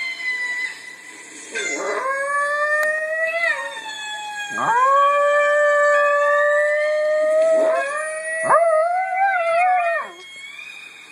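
A chihuahua howling: a run of long, drawn-out howls, each starting with an upward swoop and holding a wavering pitch. The howling stops about ten seconds in.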